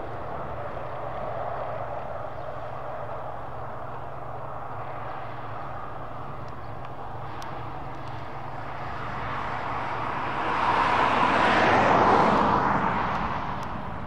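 Tractor diesel engines and a potato harvester working, a steady running sound that swells louder for about three seconds near the end, then eases off.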